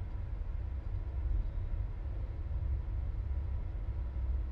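Steady low rumble played through a pair of studio monitor speakers as the sound of a video installation, with a few faint steady tones above it.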